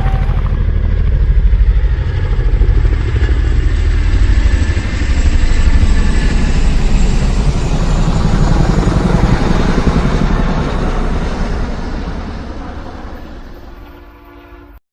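Loud engine of a motor vehicle running with a fast, even pulsing rumble. It swells in, holds, then fades away over the last few seconds before cutting off abruptly.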